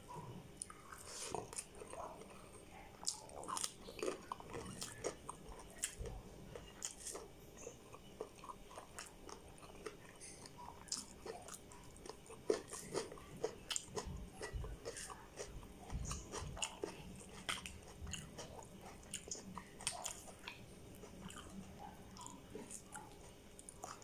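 A person chewing a mouthful of rice and prawn curry, eaten by hand, with many short wet mouth clicks spread irregularly throughout.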